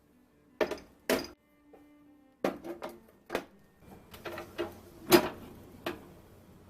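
Kitchen containers and dishes being handled and set down, about ten separate clacks and knocks, the loudest a little past five seconds in.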